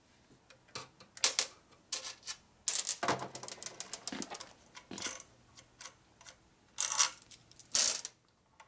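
Metal transmission parts clicking and clinking as they are handled on a workbench, with a few louder metallic clatters spread through.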